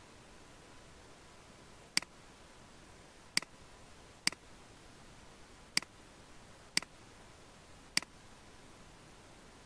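Computer mouse button clicking six times at uneven intervals, each a short, sharp click, over a faint steady hiss.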